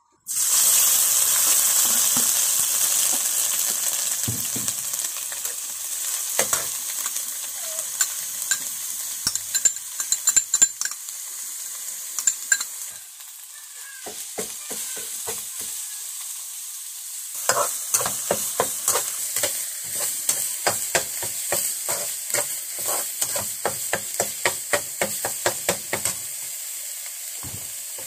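Food frying in a hot pan, a loud sizzle that starts suddenly and slowly dies down. Later a utensil stirs and scrapes in the pan in quick, even strokes, about three a second.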